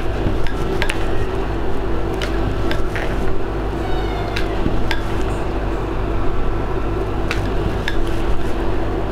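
A wooden rolling pin knocking and clicking on a plastic cutting board as dough is rolled out into a round, over a steady background hum. A short high squeak comes about four seconds in.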